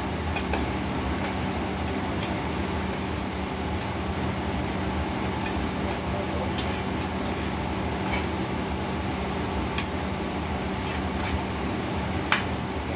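Steady roar of a commercial kitchen's exhaust hood and gas range with a constant low hum. A metal spoon clinks and scrapes now and then in a frying pan of beef bulgogi as it is stirred, loudest once near the end.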